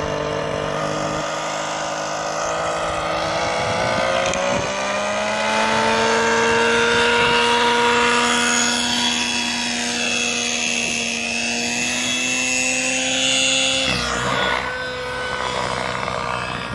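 SAB Goblin Black Nitro RC helicopter's two-stroke glow engine and rotor running, rising in pitch as the head spools up over the first few seconds, then holding steady while it hovers. About fourteen seconds in the pitch shifts, and the sound fades as the helicopter flies off.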